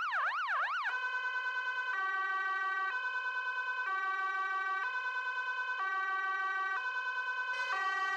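Electronic siren in a fast rising-and-falling yelp that, about a second in, switches to a two-tone hi-lo siren alternating about once a second.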